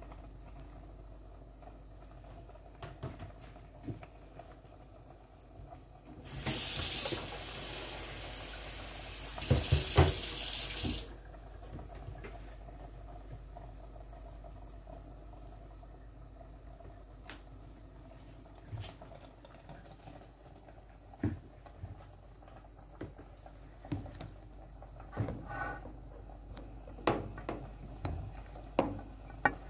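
A kitchen tap running into a sink for about five seconds, with a brief break partway, then scattered light knocks of kitchen handling.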